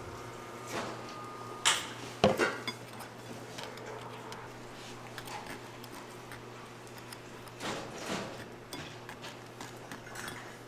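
Kitchen utensils and cookware knocking and clinking a few times, the loudest cluster about two seconds in, over a steady low hum.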